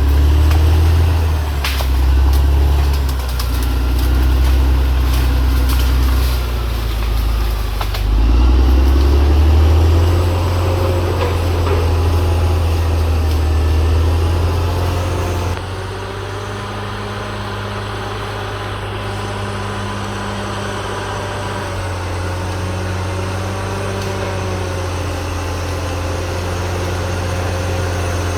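CAT D6R XL bulldozer's diesel engine running under work, with a low steady drone and some sharp clicks in the first couple of seconds. Its pitch rises about eight seconds in. About halfway through it drops to a quieter, steadier run.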